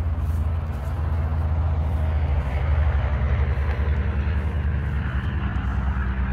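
An engine running steadily, a low hum with a fast, even throb.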